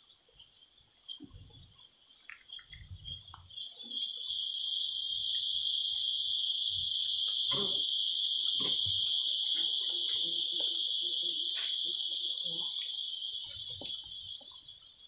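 Tropical forest insects calling: a steady high-pitched shrill that swells in about four seconds in and fades near the end, over a thin, steady high whine. A few faint knocks and rustles sound beneath it.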